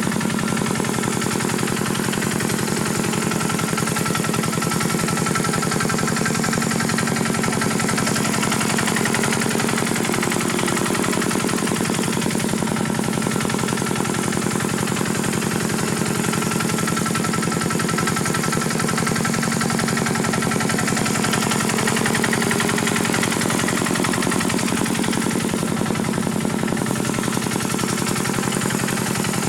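Small tractor engine running steadily with a rapid, even beat.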